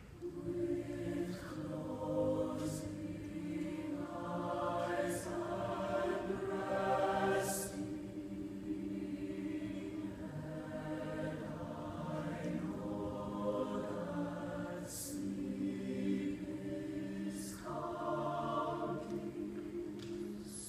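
High school mixed choir singing sustained chords that swell and fade in waves, with brief crisp consonants cutting through several times.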